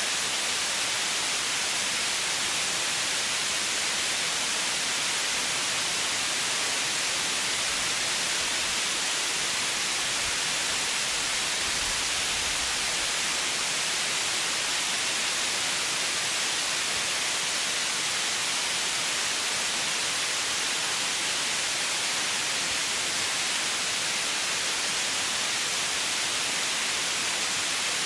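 Steady white noise: an even, bright hiss that does not change.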